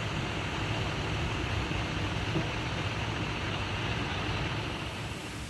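MAN fire engine's diesel engine running steadily while parked, a low, even rumble with a steady hiss above it.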